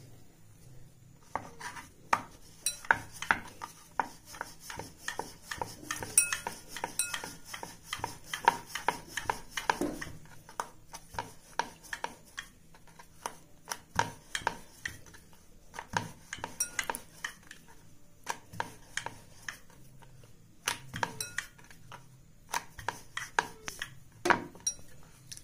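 Wooden rolling pin working dough on a round wooden chakla board: many light, irregular wooden clacks and knocks as the pin is rolled back and forth and the board shifts on the counter.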